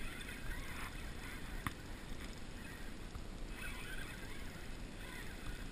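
Quiet handling noise of a spinning rod and reel while a hooked zander is being played from an inflatable boat, with one sharp click about a second and a half in.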